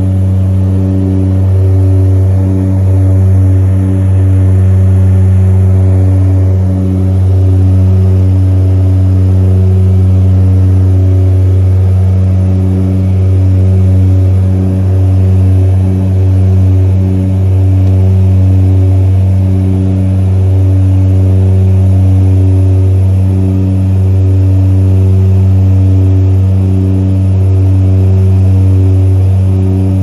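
A seaplane's propeller engine drones steadily in flight, heard loud from inside the cabin. It is a deep hum with a slow, uneven throb.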